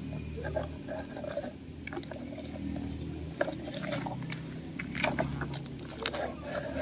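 Plastic toy tanker truck's wheels crunching over dry dirt and leaf litter as it is pulled along on a rope, with scattered crackles and clicks that grow busier about halfway through, over a low steady hum.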